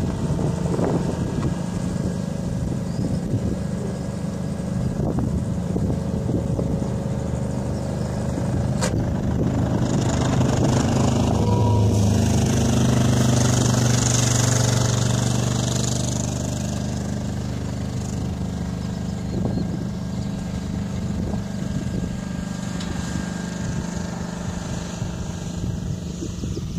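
Diesel engine of a truck carrying an asphalt paver body running steadily as it lays asphalt at crawling speed, a low hum that swells louder for a few seconds around the middle.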